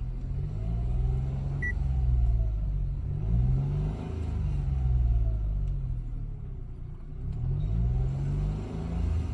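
2017 Mitsubishi Mirage's three-cylinder engine, with CVT, revving up and down several times over a low droning rumble. The owner attributes the noise under acceleration to a vibrating metal part.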